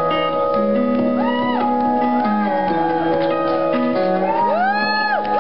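Lap steel guitar played live: held notes over a low sustained line, with slide glides that rise in pitch and fall back, several in a row and widest near the end.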